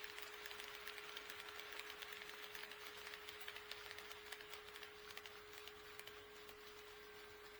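HO scale model train running on sectional track, its wheels making a quick, irregular clicking over the rail joints that thins out after about six seconds, over a steady high hum.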